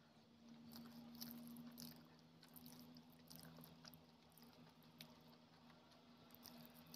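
Quiet, close mouth sounds of chewing a mouthful of rice, with soft smacks and clicks, followed by fingers squishing rice and gravy together on a paper plate. A faint steady hum runs underneath.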